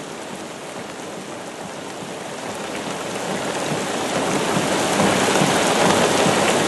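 Heavy rain pouring down, growing steadily louder over the first five seconds and then holding steady.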